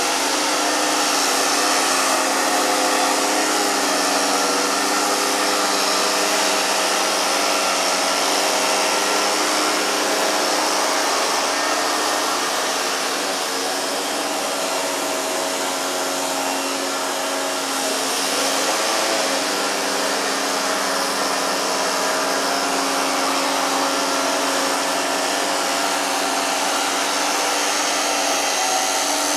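Loud, steady machine noise with a droning hum of several steady tones, easing slightly about halfway through.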